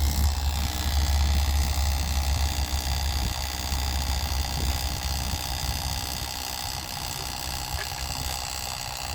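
Oil transfer pump running steadily with a low hum and a few constant whining tones, pushing thick 75W-90 GL5 gear oil into a rear differential.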